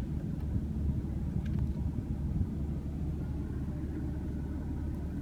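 Steady low rumble in a car's cabin, with a couple of faint clicks, one about a second and a half in.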